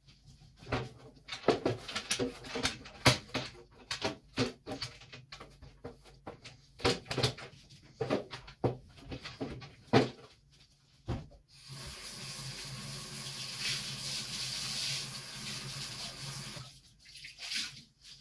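Kitchen containers and items clinking and knocking as they are handled and set down, a quick run of sharp knocks. Past the middle this gives way to a tap running steadily into a sink for about five seconds.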